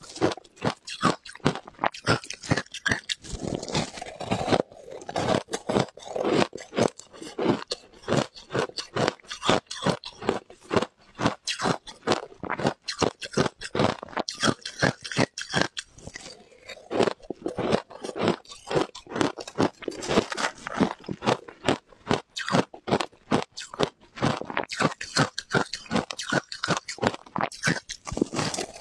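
A person biting and chewing frozen ice: a fast run of sharp crunches, several a second, with short pauses between mouthfuls.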